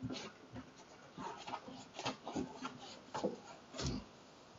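Plastic rubbing and scraping with a few light knocks as a float valve's nut is hand-tightened from inside a plastic water tank, an arm working through the tank's top opening.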